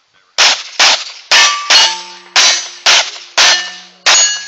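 Rapid string of eight handgun shots at steel targets, about two a second, each hit followed by the ringing of the steel plate. The last plate is left ringing after the final shot.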